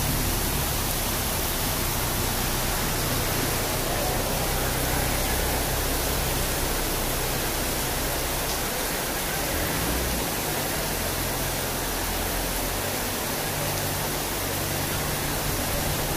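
Monsoon floodwater rushing down a street as a torrent, making a steady, unbroken wash of noise.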